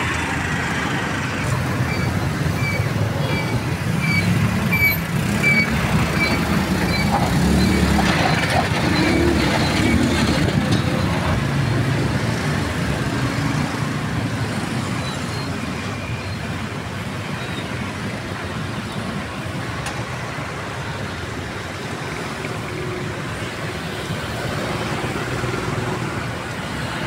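Street traffic: a vehicle engine rumbles past close by, rising and fading over several seconds. A run of short, evenly spaced high beeps, about two a second, sounds for several seconds near the start.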